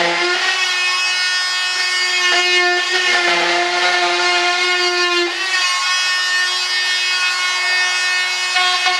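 A high-speed power cutting tool running with a steady whine as it cuts through the cured fiberglass edge of a mold, with a gritty grinding noise under the whine. The whine briefly drops out about five seconds in, then picks up again.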